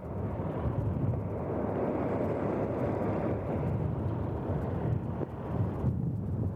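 Fire engine running and pumping water to a charged hose line, heard as a steady noise mixed with wind on the microphone.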